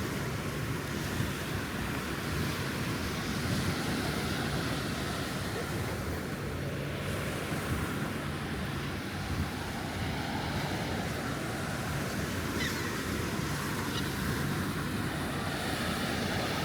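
Gulf surf washing onto the beach, steady throughout, with wind rumbling on the microphone and a faint low hum underneath.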